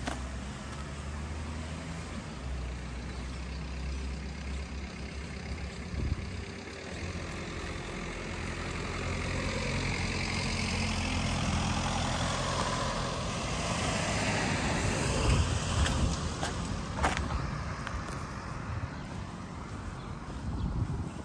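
Road traffic: a motor vehicle's engine rumbling steadily, then growing louder as a vehicle passes, loudest a little past the middle before fading. A single sharp click follows soon after.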